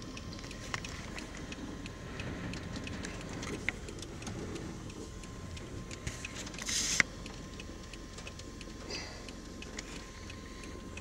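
Steady low rumble inside a stopped or slow-moving vehicle during a violent storm, with scattered light ticks throughout and a short hiss about seven seconds in.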